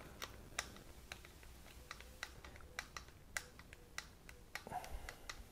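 Faint, irregular small clicks and ticks as a screwdriver turns a stainless steel 1/4-20 screw into a half-inch PVC threaded plug held in channel-lock pliers.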